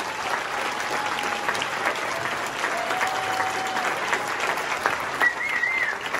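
Audience clapping steadily. About five seconds in, a brief high wavering call rises above the clapping.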